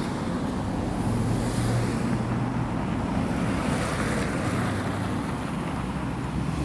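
Steady rumble and hiss inside a PESA Fokstrot tram, with a low electrical hum that shifts pitch a couple of times.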